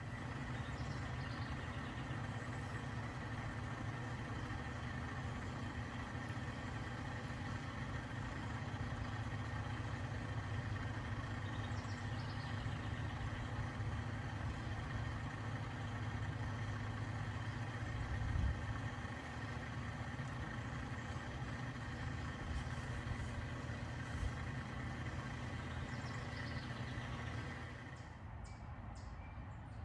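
A motor running steadily: a low hum with a thin, steady high whine over it, dropping away near the end.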